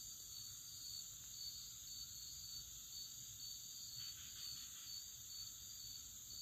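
Faint, steady chorus of insects chirping, a high pulsing trill repeating evenly over a low background hum.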